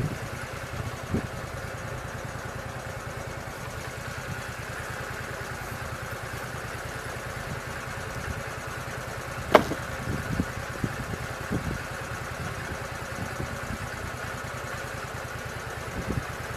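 Lucas swingblade sawmill's engine idling steadily, with a single sharp click about halfway through.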